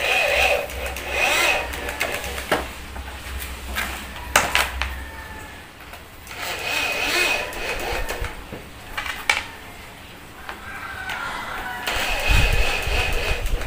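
Power drill-driver running in several short bursts as it drives screws to fasten a cabinet door hinge, with a few sharp clicks in between.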